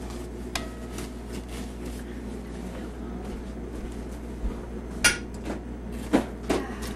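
Kitchen clatter of a spoon and dishes: a few sharp clinks and knocks, the loudest about five seconds in, with two more near the end.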